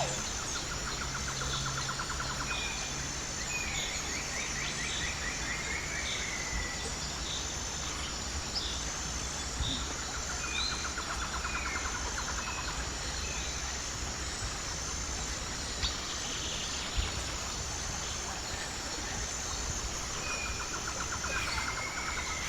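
Outdoor ambience of several songbirds calling: repeated trilled phrases and short whistled notes. Under them runs a steady high, pulsing insect buzz and a low background rumble.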